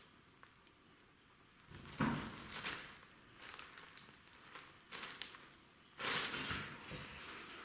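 Cellophane bag crinkling and rustling in short bursts as a kitten steps and paws inside it, with a sharp rustle about two seconds in and a longer crinkle near the end.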